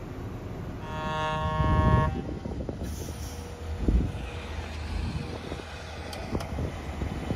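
A dump truck's horn sounds once for a little over a second, about a second in, over the steady low running of diesel engines. A heavy thump follows a few seconds later.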